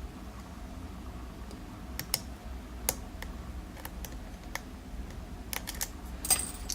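Scattered small sharp clicks and taps of a lock pick working the pin stacks of a 7-pin Zeiss Ikon Euro cylinder, with a quicker cluster of clicks near the end; the pins are not yet all set.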